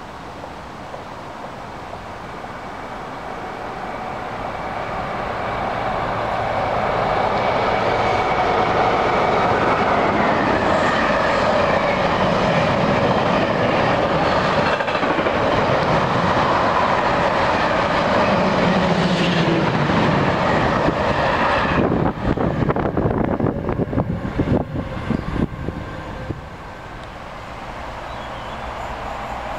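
Container freight train running through, its noise building over the first few seconds and then staying loud as the wagons roll past. Near the end comes a run of sharp clattering knocks from the wheels.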